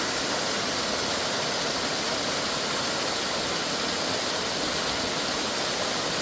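Water of a mountain valley stream rushing with a steady, even hiss.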